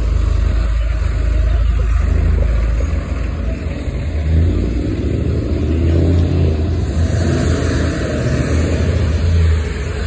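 School bus engines running close by with a steady low rumble, growing fuller about halfway through, with a hissy stretch near the end.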